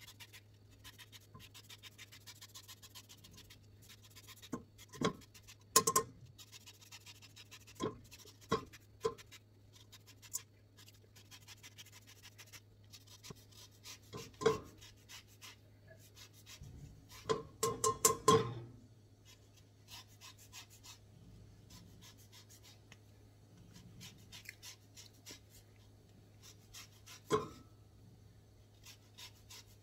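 Lemon being zested on a stainless-steel rasp grater: repeated soft scraping strokes of the peel across the blades. A few sharper metallic clicks punctuate it, with a quick cluster of them about eighteen seconds in.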